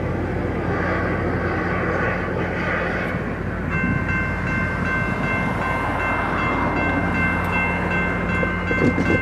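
A pair of F40PH diesel-electric locomotives, driven by EMD 645 two-stroke V16 diesels, running at low speed with a steady low drone and rumble as the passenger train approaches. About four seconds in, a high, steady squeal of several pitches from the train starts and holds.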